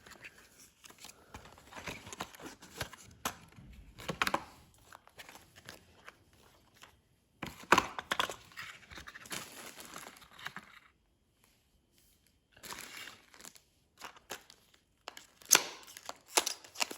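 Packaging of a phone battery replacement kit being torn and crinkled open: irregular rustling, with sharp louder snaps about eight seconds in and twice near the end.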